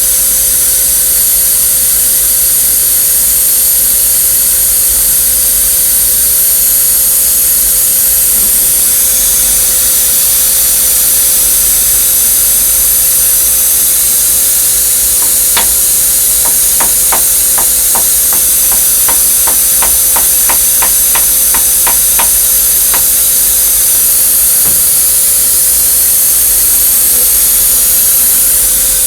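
A dead blow hammer tapping a machine vise, a run of about twenty light taps over some seven seconds midway through, nudging the lightly clamped vise into alignment with the indicator. A steady loud hiss with a hum runs underneath.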